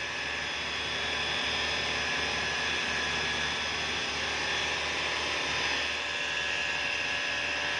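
2013 Chevrolet Malibu engine running with a steady humming whine, which the mechanics diagnose as a timing chain noise.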